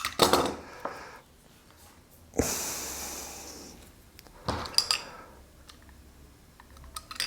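Handling noises from cutting open a speaker cable's outer sleeve with a utility knife: scattered small clicks and scrapes of the blade and cable. About two and a half seconds in comes a hissing rush that fades over a second or so.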